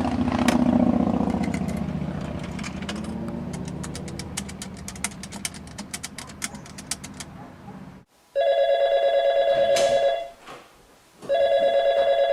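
A vehicle passes with a low rumble that swells and fades, and a run of rapid clicks sounds over it. After a sudden cut, a telephone rings twice, each ring about two seconds long.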